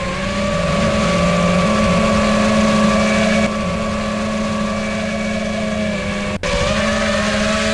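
5-inch FPV quadcopter's brushless motors and propellers whining steadily in flight, the pitch stepping up and down a little with throttle, with a split-second dropout about six and a half seconds in. One propeller is dinged, which the pilot can hear as a funny sound.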